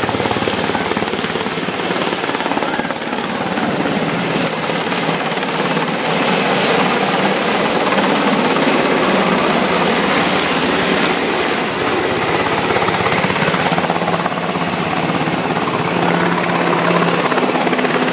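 UH-60 Black Hawk military helicopter flying low and hovering over a pond, its rotor beating loud and steady.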